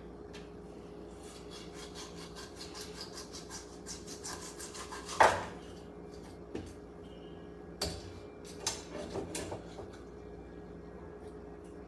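A knife scraping quickly on a wooden cutting board in a run of rapid strokes, then a sharp knock on the board about five seconds in and a few lighter knocks and clicks after it, over a faint steady hum.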